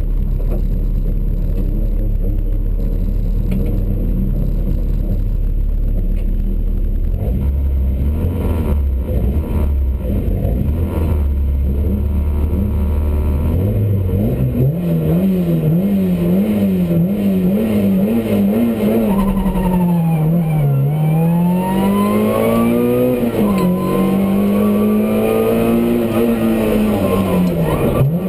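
Rally car engine heard from inside the cabin: idling steadily at the stage start, then held at raised revs for several seconds. About fourteen seconds in the car launches, and the engine pitch climbs and drops repeatedly through the gear changes as it accelerates.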